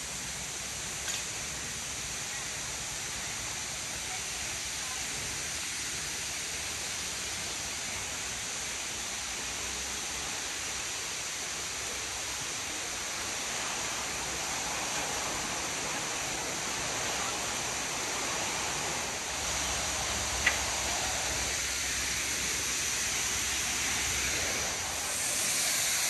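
Steady rushing hiss of a waterfall, the roar of Dry Falls, growing gradually louder and swelling near the end. A single sharp click about twenty seconds in.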